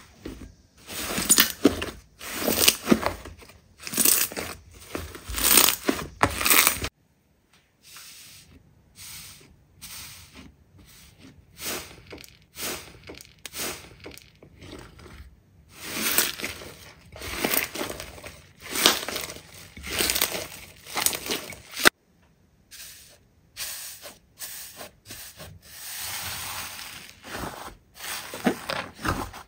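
Hands squeezing, pressing and pulling slime close to the microphone, making irregular bursts of sticky, crackly noise. The sound cuts off abruptly twice, about a third of the way in and again about three quarters of the way through, as one slime clip gives way to another.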